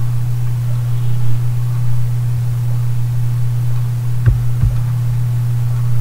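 Steady low electrical hum, with two short clicks close together a little over four seconds in.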